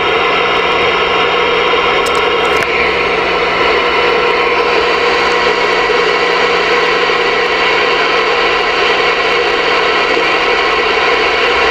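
Voyager VR9000 CB radio receiver hissing steady static through its speaker while tuned to 27.635 MHz, with no voice coming through and a steady low hum underneath.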